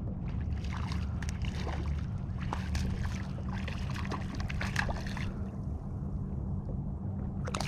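Water splashing in a run of short, irregular bursts for about five seconds, then again near the end, as a small hooked speckled trout thrashes at the surface while being reeled to the kayak. A steady low rumble runs underneath.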